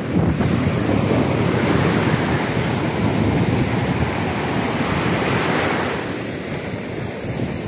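Ocean surf breaking and washing up the beach in a strong tide, the wash easing a little about six seconds in, with wind on the microphone.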